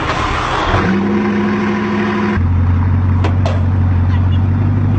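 A motor running at a steady speed: a hum sets in about a second in and drops to a lower, stronger drone about two and a half seconds in, holding steady after that.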